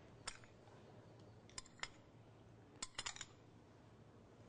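Light clicks and taps of a small container of coconut milk powder being handled over a glass bowl of granola: one near the start, two a little later, and a quick cluster of about four near the end, over near silence.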